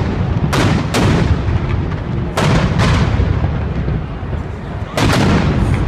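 Fireworks bursting: loud bangs coming in three quick pairs, over a continuous low rumble of further reports and echo.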